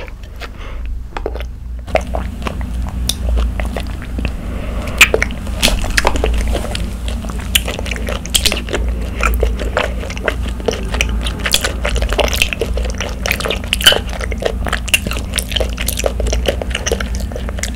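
Sipping bubble tea through a wide straw, then chewing tapioca pearls close to the microphones: a dense run of small wet clicks and smacks from about two seconds in.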